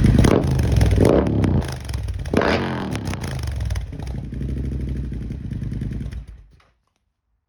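Bobber motorcycle engine running, with three quick revs near the start before it settles to a steadier run. The sound stops suddenly about six and a half seconds in.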